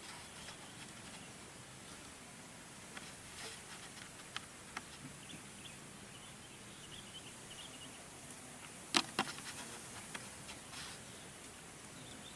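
Steady faint insect buzzing in the scrub, with a few faint short chirps in the middle. About nine seconds in come two sharp clicks close together, the loudest sounds.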